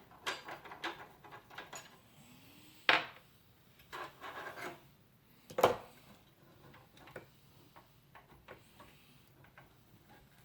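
Graphics card being handled and pushed into a computer case's expansion slot: light clicks and rubbing, with two sharp knocks, one about three seconds in and one nearly six seconds in, then scattered small ticks.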